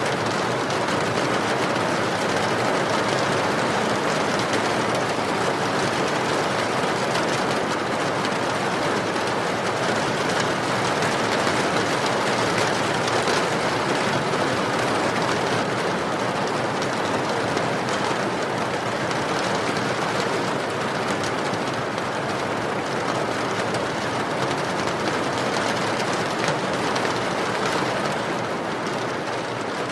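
Steady rain falling, a dense even hiss of drops that holds at one level throughout.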